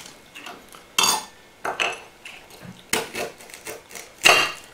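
Rice cracker snack and its packaging being handled: four or five sharp clicks and clatters of hard pieces, the loudest near the end.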